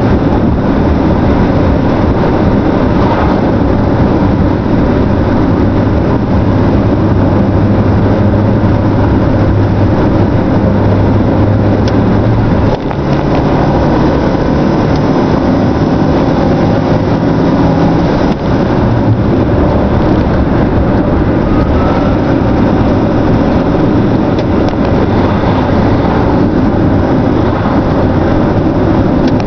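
Renault Clio 1 with a swapped engine driving, heard from inside the cabin: a loud, steady engine drone mixed with road noise. It dips briefly about 13 seconds in, with the engine note sitting higher afterwards, and again about 18 seconds in.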